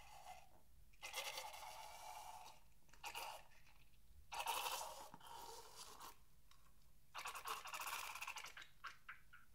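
Slime squeezed out of the neck of a balloon into a dish of slime, making wet, crackly squelches in several bursts, with a few separate small clicks near the end.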